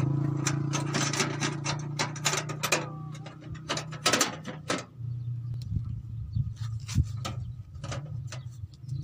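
A machine running with a steady low hum, overlaid by many sharp clicks and knocks that are thickest in the first half and thin out after about five seconds, when the hum settles slightly lower.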